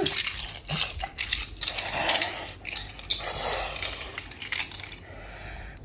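Small die-cast toy cars clicking and clattering against each other in a child's hands, a quick run of light knocks that thins out near the end.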